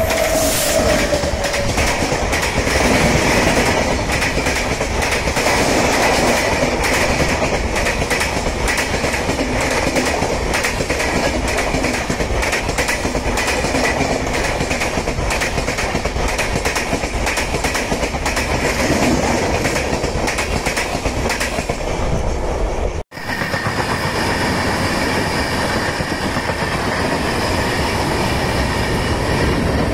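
Locomotive-hauled passenger coaches rolling past close by, with a steady roar of wheels on rail and dense rapid clicking, and a brief falling tone as the locomotive goes by at the start. About 23 seconds in, the sound breaks off suddenly and picks up again with another passing train's coaches.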